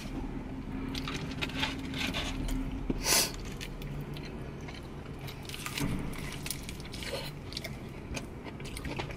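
Close-up eating sounds: people biting and chewing crispy fried chicken wings and noodles, with scattered crunches and mouth clicks. One louder crunch comes about three seconds in.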